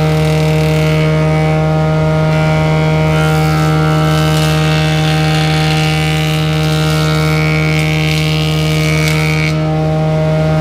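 Heavy woodworking machine running steadily: a loud, even hum with higher overtones and hiss above it, the hiss shifting a little about three-quarters of the way through.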